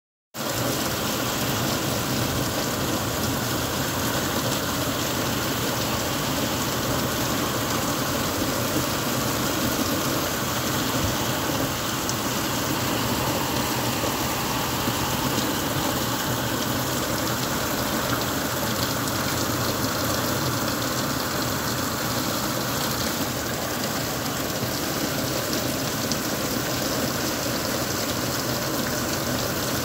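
Heavy rain pouring steadily, drops splashing on wet pavement.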